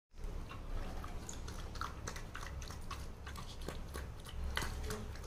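Golden retriever puppy eating soft mashed food from a stainless steel bowl: irregular wet lapping and chewing clicks, several a second.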